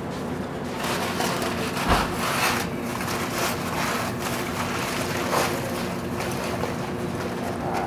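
Aluminium foil crinkling in repeated short crackles as it is peeled open from around a smoked brisket, over a steady background hum, with one low thump about two seconds in.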